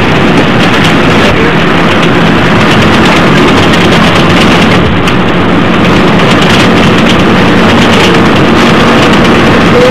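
Double-decker bus under way, heard from inside the upper deck: a loud, steady mix of engine drone and road noise with a low hum underneath.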